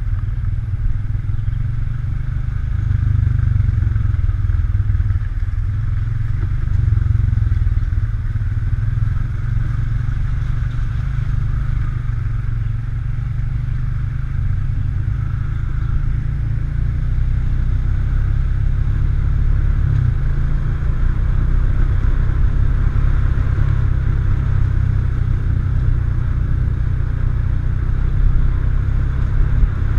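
ATV engine running steadily as the quad is ridden, with a heavy low rumble and small rises and falls in loudness.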